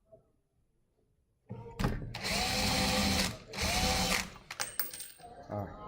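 Electric drill boring the centre hole into the end of a wooden lathe blank, run in two bursts, the motor whining up to speed each time. Near silence before it starts.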